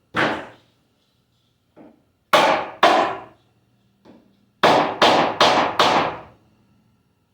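Hard wooden knocks as a glued and nailed cabinet door frame is struck to break its joints apart: a single knock, a pair, then four in quick succession, each with a short ringing tail.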